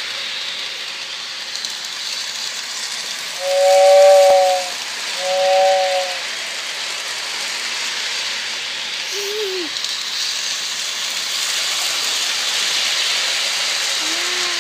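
Lionel toy steam locomotive running on its track with a steady hiss, sounding its two-note whistle twice, a longer blast then a shorter one, about four and six seconds in.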